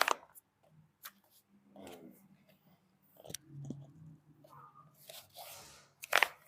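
Rustling and handling noise with scattered sharp clicks: a sharp click right at the start, a rustling patch about five seconds in, and the loudest click near the end.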